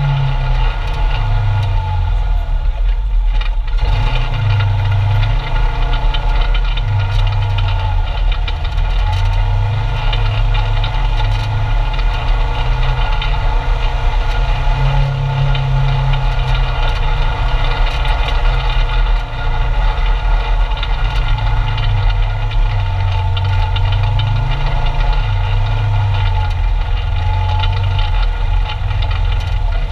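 Polaris RZR 900's twin-cylinder engine running at low trail speed, heard from inside the cab. Its note steps up and down every few seconds as the throttle is eased on and off.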